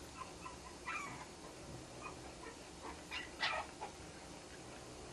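Five-week-old English bulldog puppies making a few short vocal sounds as they move about, the loudest about three and a half seconds in.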